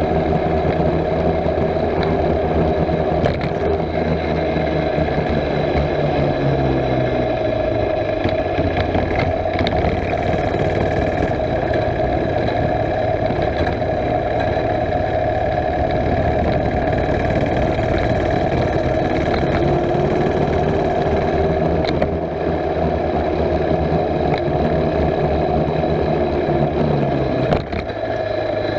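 A mini bike's small gasoline engine runs continuously under way, picking up revs about seven seconds in and easing off near the end.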